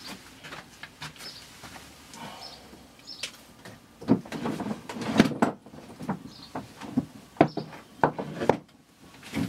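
Handling noise: a run of irregular knocks, clicks and rustles, sparse at first and busier from about four seconds in.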